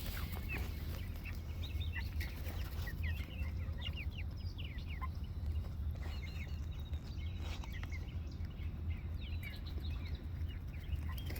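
A flock of young Cornish cross broiler chickens peeping and cheeping as they feed: many short high chirps, scattered and overlapping, over a steady low rumble.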